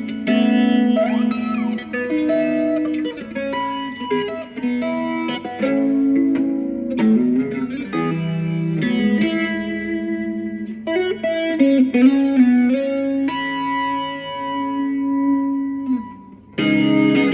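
Guitar playing a melody of single plucked notes, with a few slides between notes and a brief pause near the end.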